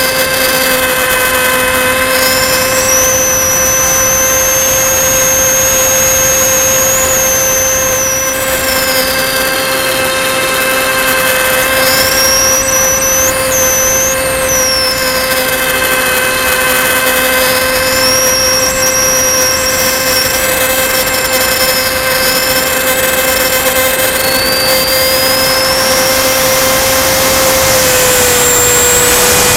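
The HobbyKing Bixler 1.1's 2620 1900kv brushless outrunner motor and propeller, heard from a camera on the plane, run steadily under a constant hum and air rush. A high motor whine rises and falls several times as the throttle is worked.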